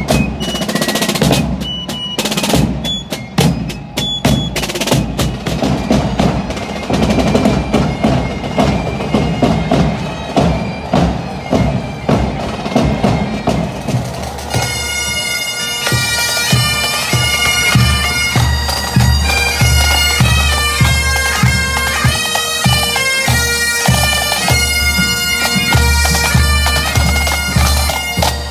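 A fife and drum corps playing: rope-tension field drums beating and rolling under a thin, high fife melody. About halfway through this gives way to a pipe band of Great Highland bagpipes, with steady drones and a chanter melody over regular bass-drum beats.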